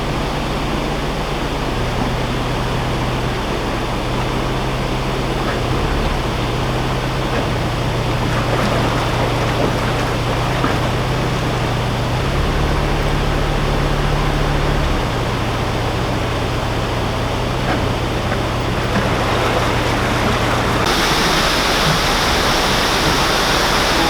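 Water rushing and churning steadily in a canal lock as it fills or empties through open paddles, over a low steady hum from a narrowboat engine. The mix changes abruptly several times, most clearly about 21 seconds in.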